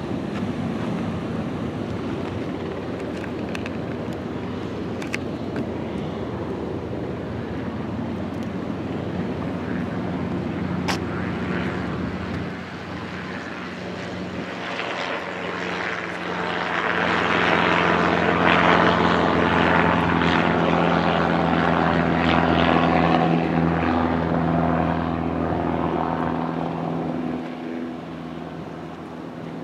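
Airplane engines droning as an aircraft passes, growing louder about halfway through and easing off near the end.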